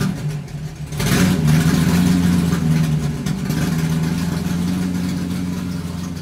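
Car engine sound effect: the engine is running, surges in a burst of revving about a second in, then runs steadily and slowly fades.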